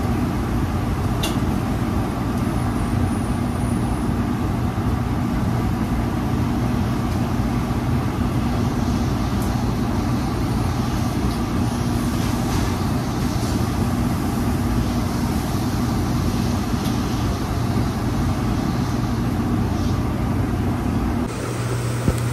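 Steady drone of a restaurant kitchen's exhaust hood fan running over the grill line, with a low hum. A few light clicks of metal tongs against the grill sound over it.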